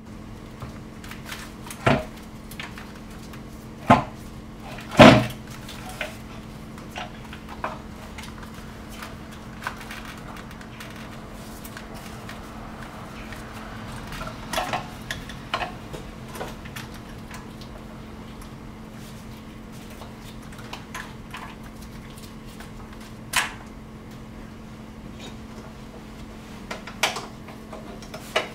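Scattered knocks, clicks and clunks of the intake manifold being worked loose and lifted out of a Toyota V8's engine bay, the loudest about five seconds in, over a steady low hum.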